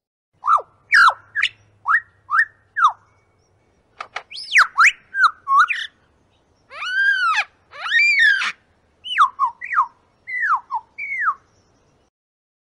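Bird calls: a run of short chirps that sweep down in pitch, then a few longer arched calls that rise and fall, then more downslurred chirps, with short silences between them.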